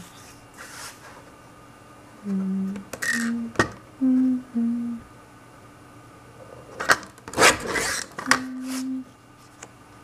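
A person humming a slow tune in short held notes. Card stock is handled on a metal paper trimmer, with a sharp click about three and a half seconds in and a louder rustling scrape around seven to eight seconds in.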